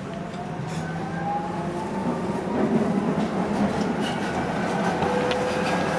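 Docklands Light Railway train accelerating: the whine from its electric traction motors rises steadily in pitch, while the rumble and rattle of the running gear grow louder.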